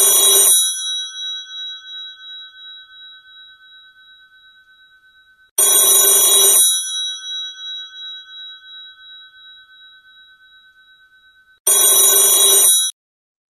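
Phone ringtone for an incoming call: three rings about six seconds apart, each a short bright burst followed by a long fading tone. The third ring cuts off suddenly near the end.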